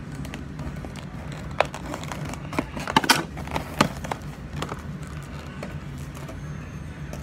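A cardboard and plastic toy box being handled and opened: scattered clicks, taps and crinkles, with a quick run of sharper snaps about three seconds in.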